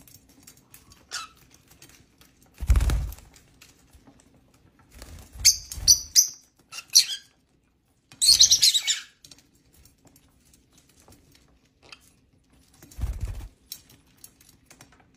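Lovebirds in an aviary giving short, high-pitched chirping calls in a few clusters around the middle, with dull wing-flap thumps about three seconds in and near the end.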